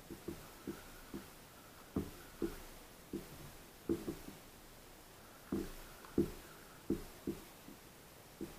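A spinning rod and reel being worked for slow-pitch jigging on a small boat: a string of short dull knocks, one or two a second in uneven groups, with a faint whir from the reel being cranked between them.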